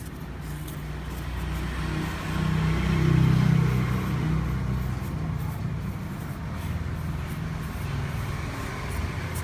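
A motor vehicle's engine running, with a steady low drone that grows louder about two to three seconds in and then eases back to a steady level.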